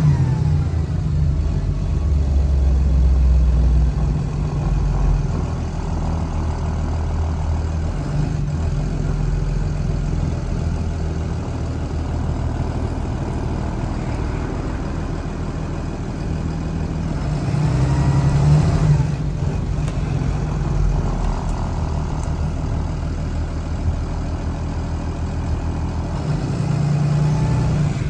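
Engine of a 2013 Blue Bird All American school bus running, its pitch shifting up and down, with a louder rise about two-thirds of the way through.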